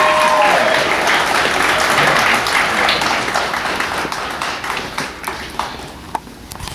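Theatre audience applauding and cheering at the end of a song, the clapping loud at first and thinning out as it fades over the last few seconds.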